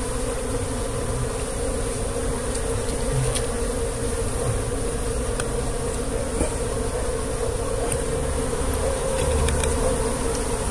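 A colony of wild Asian honeybees (Apis cerana) buzzing steadily around their nest as their comb is taken by hand, with a few faint clicks of handling.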